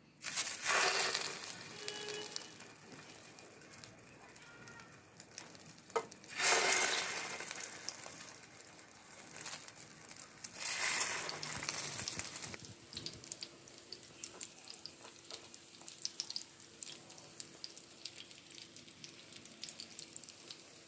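Battered jeon pieces frying in hot oil in a pan: a sudden loud sizzle right at the start and again about six and ten seconds in as more pieces go into the oil, each dying down to a steady crackle.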